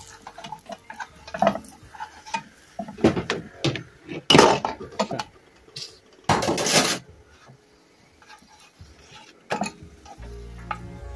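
Kitchen utensils clattering against a frying pan: scattered knocks, with two longer, louder scrapes about four and six seconds in. Background music starts near the end.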